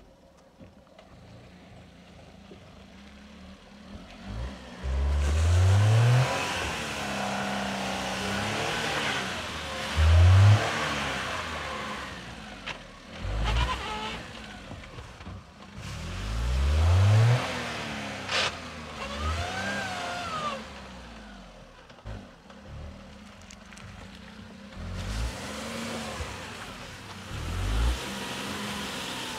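Maruti Suzuki Alto's small three-cylinder petrol engine revving in repeated surges as the car climbs a slushy, snow-packed road. The pitch rises in each surge, most strongly about five, ten and sixteen seconds in.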